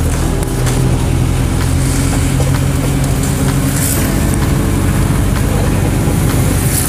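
A vehicle engine running steadily while driving along a street, heard from inside the vehicle with road noise. The engine note shifts about four seconds in.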